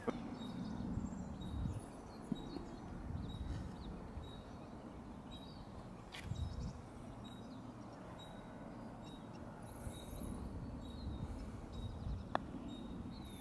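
Outdoor background of low wind rumble on the microphone with faint bird chirps. Near the end, a single short click of a golf club striking the ball on a chip shot.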